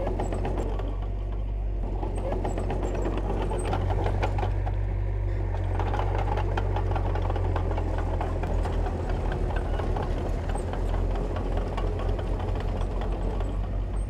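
Diesel engine of heavy earthmoving machinery, a bulldozer or dump truck, running under load with a deep steady rumble and dense clatter. Past the middle, the low rumble turns uneven and pulsing.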